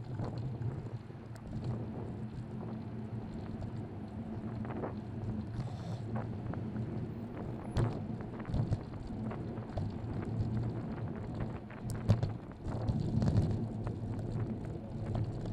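Wind buffeting the microphone of a helmet-mounted action camera on a moving bicycle, over a steady low rumble of road and city traffic, with occasional sharp knocks and rattles, the loudest about eight and twelve seconds in.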